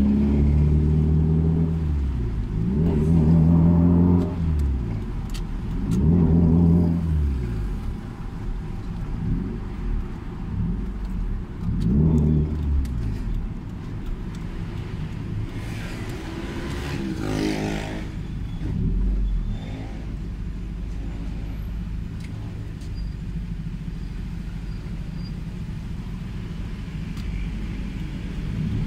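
Toyota Celica ST205's turbocharged 3S-GTE inline-four, heard from inside the cabin, with its exhaust freshly repaired. It revs up and falls back in short pulls about four times in the first dozen seconds, then settles to a low steady idle. A rushing noise with a rising tone passes over it about two-thirds of the way through.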